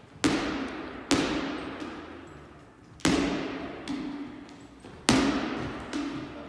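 Volleyball being struck with the hands and forearms in alternating sets and digs: four loud slaps at uneven intervals and a couple of softer knocks, each ringing out in a long hall echo.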